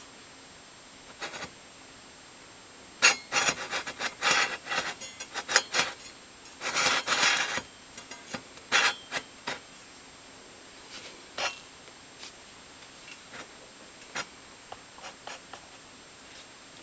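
Hands working on a table saw while adjusting and measuring the blade's alignment. A flurry of knocks, clicks and metal scraping starts about three seconds in, with a longer rub about seven seconds in, then scattered light ticks.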